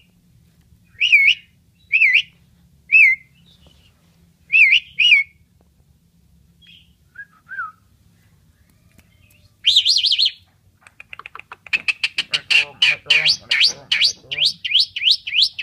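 Asian pied starling (jalak suren) calling. Short, clear whistled notes come singly or in quick pairs for the first few seconds. About ten seconds in there is a loud burst, then a fast run of rising whistles and chatter that keeps going.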